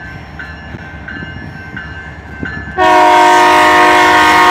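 BNSF diesel locomotive's air horn sounding one long blast, a chord of several held tones, starting about three seconds in, over the low rumble of the approaching train.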